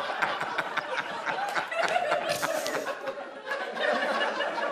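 Studio audience laughing at a joke, a dense, sustained crowd laugh.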